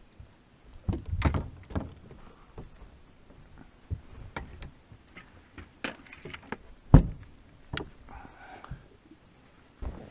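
Scattered knocks, clicks and rattles of rod, reel and boat gear while a hooked fish is played, with one sharp thump about seven seconds in.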